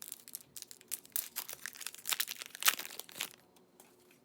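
Foil pack wrapper of a Topps Heritage 2020 baseball card pack being torn open and crinkled: a quick run of crackles and tears that stops about three and a half seconds in.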